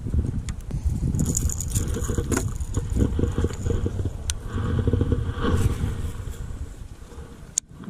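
Wind buffeting the microphone in a low, fluttering rumble, with scattered sharp clicks and a louder click near the end.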